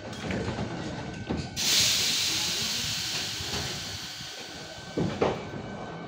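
81-71 metro train's compressed air releasing in a sudden loud hiss about one and a half seconds in, then fading slowly as the doors shut. Two sharp knocks follow near the end as the train starts to move off.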